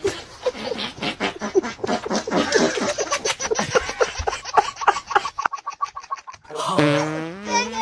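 Rapid, loud bursts of laughter, most likely a dubbed comic laugh effect, for about five seconds. Near the end a high-pitched sung voice starts, gliding up and down.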